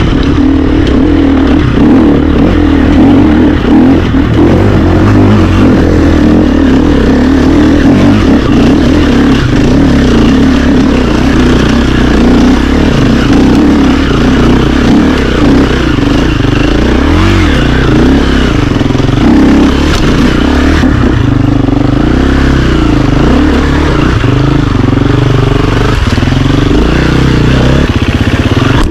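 KTM enduro dirt bike engine running hard over rough trail, its revs rising and falling constantly with throttle blips, including a quick rev up and back down partway through.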